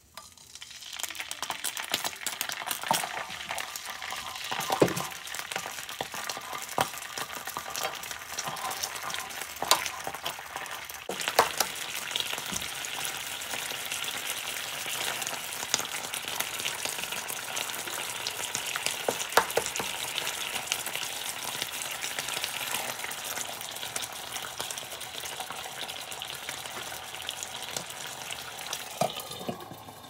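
Tomato sauce sizzling and spattering in hot oil in an electric skillet, a dense hiss full of small pops. Near the end the glass lid clicks on and the sizzle becomes muffled.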